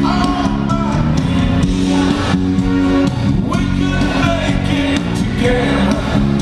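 Band music with singing and guitar, loud and steady from its sudden start.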